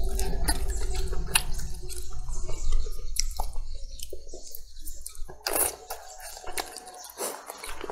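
Close-up wet chewing and slurping of soft braised eggplant, with many short smacking clicks of lips and tongue; louder in the first few seconds, then quieter, sparser mouth noises.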